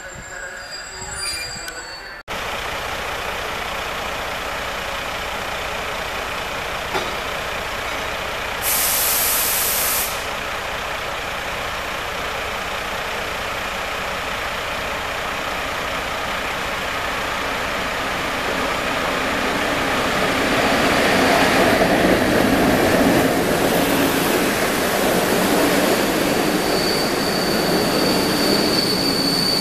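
PKP EP07 electric locomotive hauling TLK passenger coaches running into the station, its rolling noise swelling as it draws near and passes. A brief hiss comes about nine seconds in, and near the end a steady high wheel squeal sets in as the coaches roll past.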